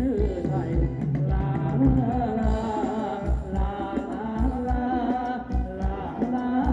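Amplified live band playing Thai ramwong dance music: a steady drum beat under a sustained melody, with some singing.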